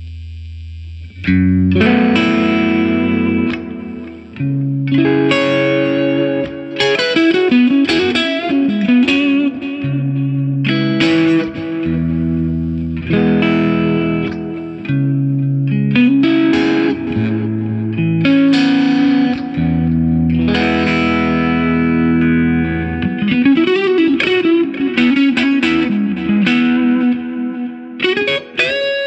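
Fender Stratocaster electric guitar played through a Mesa Boogie Fillmore 50 combo amp on its clean channel with a little gain, with a Catalinbread Belle Epoch Deluxe tape-echo pedal in the effects loop. A held low note at the start, then from about a second in, ringing chords and bass notes alternate with single-note lead lines that bend and waver in pitch.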